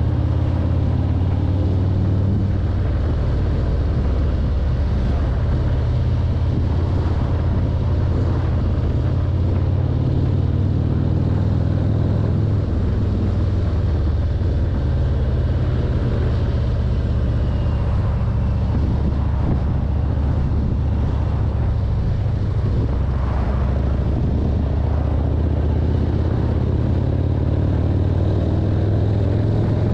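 Harley-Davidson V-twin engine running steadily as the motorcycle rides along at road speed, a loud, even low rumble.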